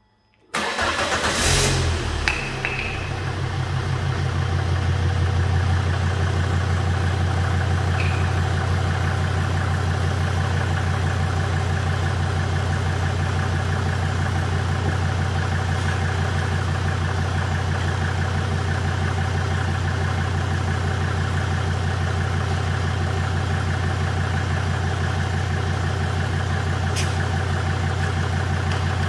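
Volvo V70 D5's five-cylinder turbodiesel starting about half a second in, catching almost at once and settling into a steady idle.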